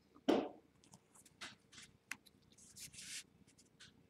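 Trading cards being handled on a table: several soft, short slides and scrapes of cardboard cards set down on a stack. Just after the start comes one short, louder breathy sound.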